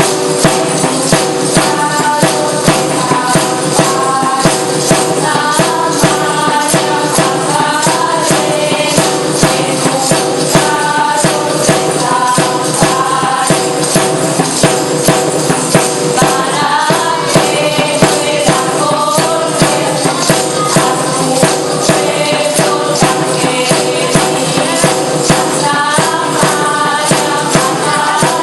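Asturian folk music: a tambourine's jingles shaken to a steady beat under a melody, over steady held notes.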